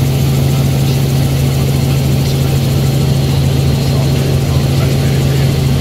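Helicopter in flight heard from inside the cabin: a loud, steady engine and rotor drone with a strong low hum.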